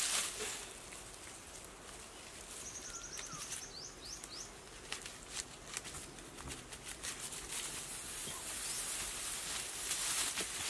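Dry grass rustling and crackling in scattered bursts as thatch is handled, busiest at the start and near the end. About three seconds in, a bird gives a quick series of high chirps.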